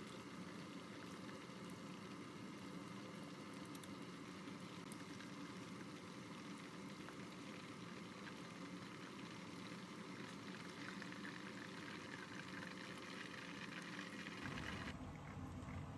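Chicken karaage pieces deep-frying in hot oil: a steady sizzle and crackle of bubbling oil. About a second and a half before the end the sound turns duller, with a low rumble coming in.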